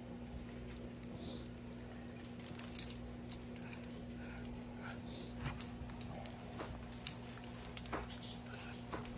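Two small dogs playing tug of war over a toy: scattered light clicks and jingles with a few faint whines, over a steady low hum.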